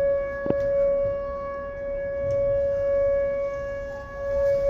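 Outdoor tornado warning siren sounding a steady tone during its weekly test, its loudness swelling and fading. A single sharp click comes about half a second in.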